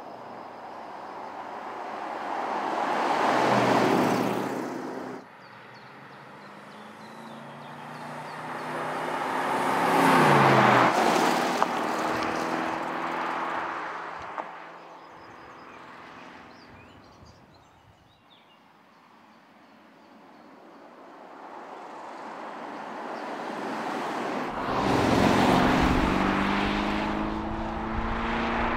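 A 2021 Porsche Cayenne GTS with its twin-turbo V8 driving past three times, the engine note and tyre noise swelling and fading with each pass. The first pass cuts off suddenly.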